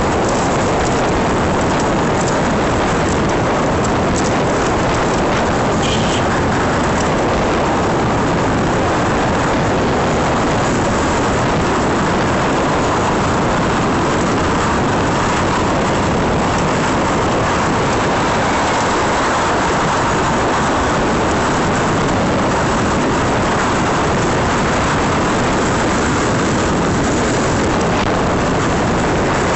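Steady rush of wind and road noise over the microphone of a camera on an electric bike moving through city traffic, loud and unchanging, with no clear motor whine or horn standing out.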